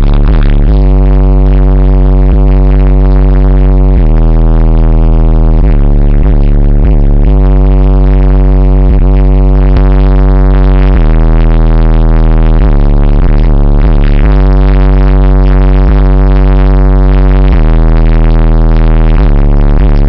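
MTX Jackhammer subwoofer in a car audio system playing bass-heavy music at very high volume: deep, held bass notes that change every few seconds. The recording is overloaded and distorted.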